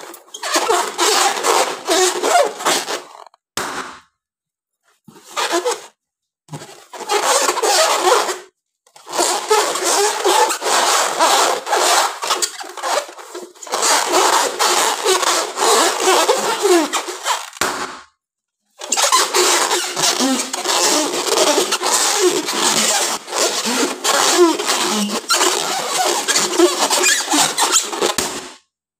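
Hands squeezing and rubbing inflated latex balloons, the rubber squeaking and creaking in long, dense stretches. The sound breaks off abruptly into silence several times.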